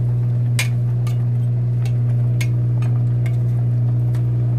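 A loud, steady low hum runs throughout, and a metal spoon clinks against the stew pot several times as the pork and cabbage stew is stirred.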